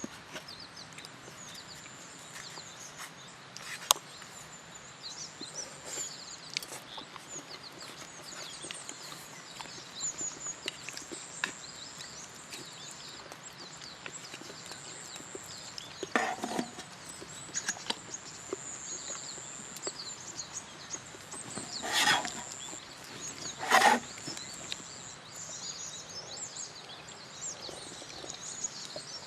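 Outdoor ambience: a steady high-pitched whine that breaks off now and then, over scattered small clicks and chirps, with a sharp click early on and three short louder clattering sounds in the second half.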